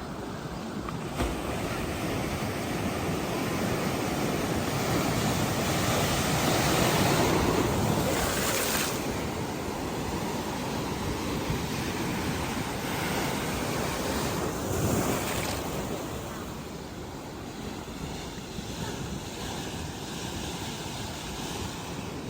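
Sea surf breaking and washing up a beach, with wind on the microphone. The surf swells loudest about six to nine seconds in and again briefly around fifteen seconds.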